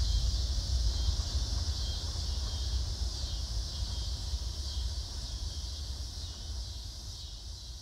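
Outdoor ambience: wind rumbling on the microphone with a steady high hiss above it, slowly fading.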